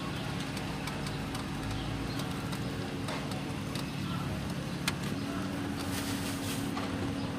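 Steady low hum of a running vehicle engine, with one sharp click about five seconds in.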